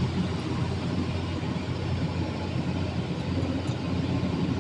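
Steady, even drone of running machinery with a low hum.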